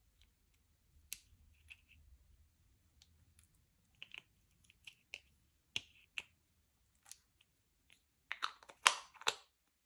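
Slime being handled and mixed: scattered sticky clicks and small air-bubble pops, then a louder, quicker run of squishy pops near the end.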